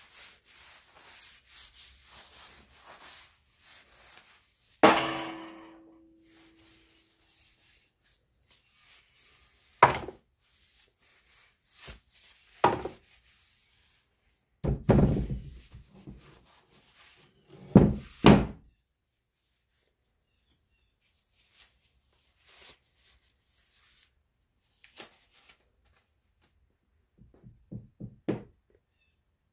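A cloth rubbing oil into a wooden axe handle with a faint, rhythmic swishing. Then come scattered knocks and thunks of the axe and handle against a wooden workbench. The loudest knock, about five seconds in, rings briefly.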